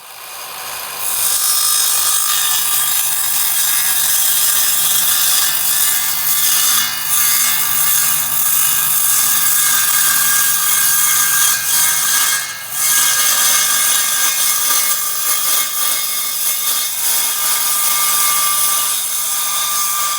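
A power tool cutting Coosa board, a steady high, hissing whine with a couple of brief dips as the cut eases off.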